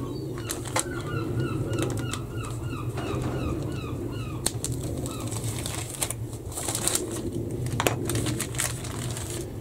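Clear plastic bags around model-kit sprues crinkling and rustling as they are handled and slit open, with scattered sharp plastic clicks. Through the first half a bird chirps over and over in quick falling notes, over a steady low hum.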